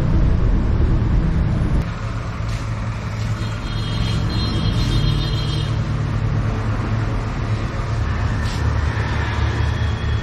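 A steady low rumble that dips slightly about two seconds in.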